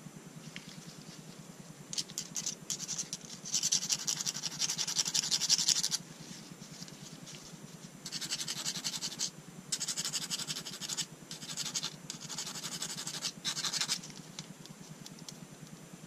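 Rapid back-and-forth strokes of a hand-held sanding stick rubbing the steel bolt stop latch of a Benelli SuperNova shotgun, smoothing the freshly modified latch. The scratching comes in four bursts of one to four seconds, the first the longest and loudest.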